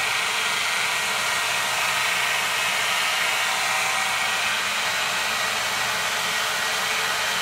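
2x72 belt sander driven by a 3 horsepower high-speed spindle motor on a VFD, running steadily: an even whirring hiss of the abrasive belt and motor.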